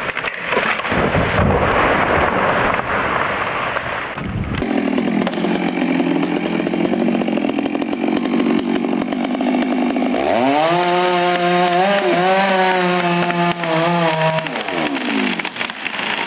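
Chainsaw running and cutting into wood. About ten seconds in, the engine revs up, holds at high speed for several seconds, then drops off near the end.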